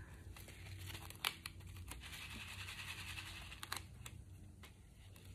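A thin acetate sheet being pressed down and handled by hand over a shaker card, giving a faint crinkling rustle with a few light plastic clicks.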